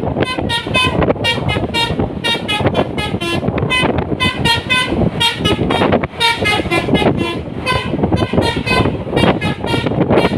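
Basuri telolet musical horn on a tour bus playing a quick, repeating melody of short pitched toots, over the rumble of road traffic.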